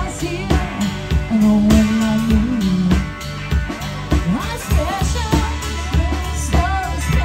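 Live band music: a singer over guitar and a steady bass line, with a regular beat.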